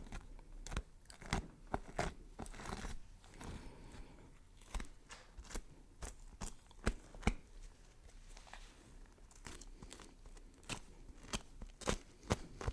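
Knife chopping vegetables on a cutting board: a string of sharp, uneven strikes with crunching as the blade cuts through.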